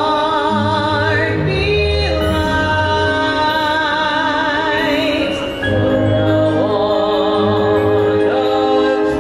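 Live singers performing a song into handheld microphones over amplified instrumental accompaniment, a woman's voice carrying long held notes with vibrato. The singing dips briefly about halfway through, then resumes.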